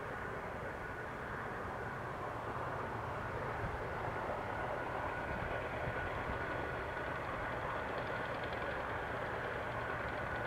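BNSF GE diesel-electric locomotives working hard at the head of a loaded grain train, a steady engine rumble that grows slightly louder as the train approaches.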